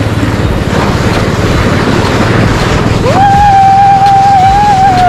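Snowmobile engine running steadily while towing a sled, with rushing air and snow noise. About three seconds in, a loud high-pitched held sound rises in and holds for about two seconds before falling away.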